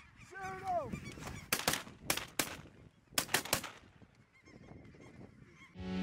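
Geese calling, with one falling honk about half a second in, then a volley of shotgun fire at the decoying flock: a quick string of shots, and a second string about a second later.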